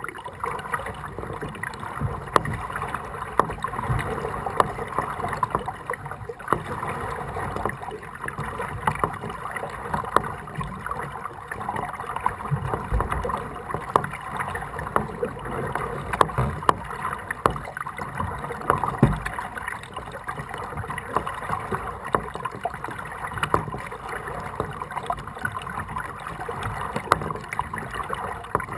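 Kayak being paddled: paddle blades dipping and water splashing and dripping, with many small irregular knocks and clicks.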